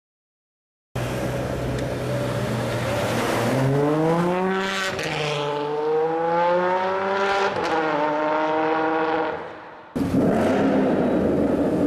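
A Ferrari 599's V12 accelerating away: the revs climb, drop at a gear change, climb again and fade as the car pulls off. About a second before the end it cuts suddenly to a Ford Mustang GT's 5.0 V8 running loudly with a rough, noisy exhaust note.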